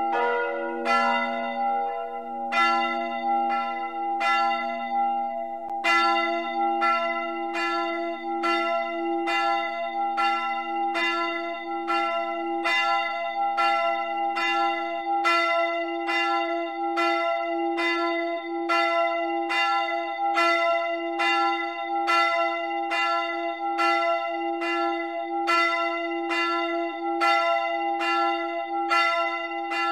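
Full peal of several church bells swinging together, their strikes overlapping at about two a second with long ringing tones. About six seconds in a brighter set of bells takes over, and the deepest bell falls silent about halfway through.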